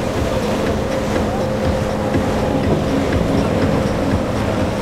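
Suzuki outboard motor on a center-console boat running at speed, a steady engine hum over the rush of its wake and the waves.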